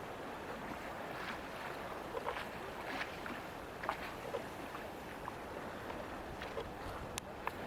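Freezing sea: slush ice shifting on the water, a steady hiss with many small scattered crackles and clicks.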